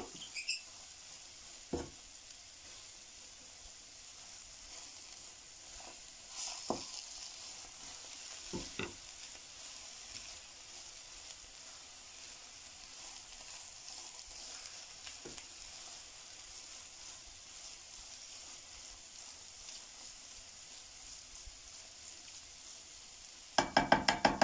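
Grated carrot halwa sizzling faintly in a non-stick kadhai while a wooden spatula stirs milk powder through it, with a few light knocks of the spatula against the pan. Near the end comes a quick, louder rattle of knocks.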